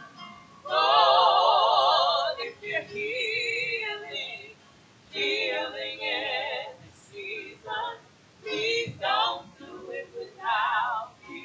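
A woman's voice singing a hymn with heavy vibrato, in long held phrases broken by short pauses.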